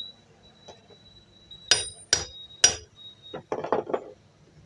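Hammer blows on a metal punch held against the jammed shaft fitting of a sewing machine head: three sharp, ringing metal-on-metal strikes about half a second apart, then a quick run of duller knocks. The blows are knocking the jammed part back into line so the shaft turns freely.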